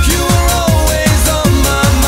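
Electronic dance music with a fast, steady kick drum and a synth melody.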